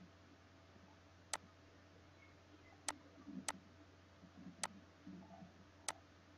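Computer mouse clicking five times, sharp single clicks at irregular intervals, over a faint steady hum.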